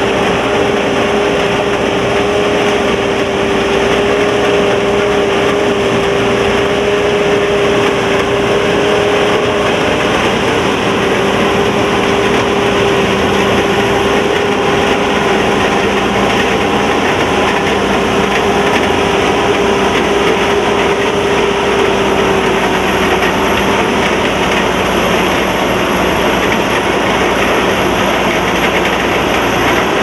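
SAKPATTANA KM-AMT No.9.9 corn combine harvester running steadily while cutting standing corn: a continuous loud machine din with a steady whine in it that fades out about three-quarters of the way through.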